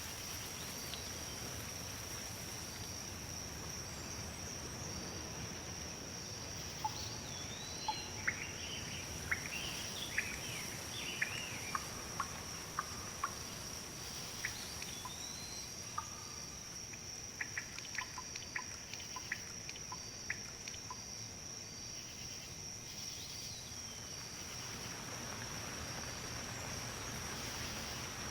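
Breeze rustling leaves as a steady soft hiss, under a continuous high-pitched insect trill. Birds chirp and call in quick short notes, thickest from about 7 to 21 seconds in.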